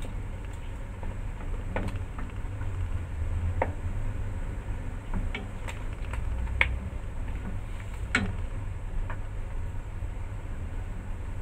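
Pot of long beans at a rolling boil with a steady low rumble, stirred with wooden chopsticks that knock sharply against the pot several times.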